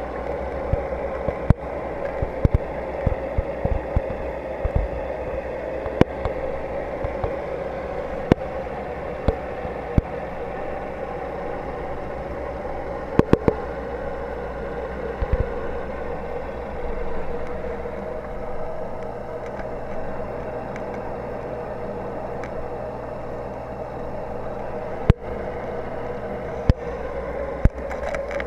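Steady mechanical hum of aquarium equipment with a low rumble underneath, broken by scattered sharp clicks and taps, more of them in the first ten seconds or so.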